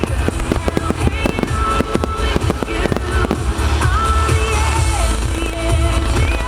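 A fireworks starmine finale: a rapid barrage of bursts and crackles, densest in the first half and thinning out later, over loud music played with the show.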